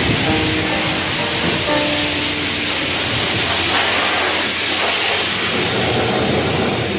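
Pressure washer spraying: a steady, loud hiss of the high-pressure water jet striking the steel side of a dump trailer.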